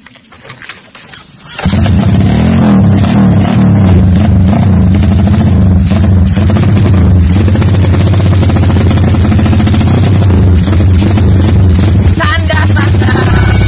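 Honda Tiger motorcycle's single-cylinder engine catching from a kick start about a second and a half in, then running loud and steady.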